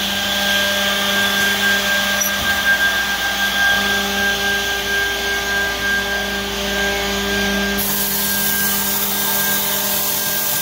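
Fravol RX700 automatic edgebanding machine running: a steady motor hum with a steady whine over it. About eight seconds in, a strong high hiss comes in and carries on.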